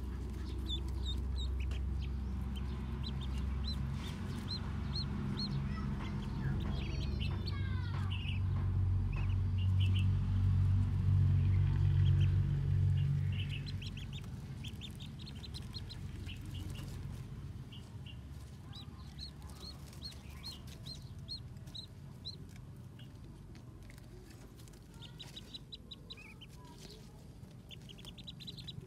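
Ducklings peeping: short, high chirps in quick runs of several. Underneath is a low rumble that is loudest in the first half and fades out about halfway through.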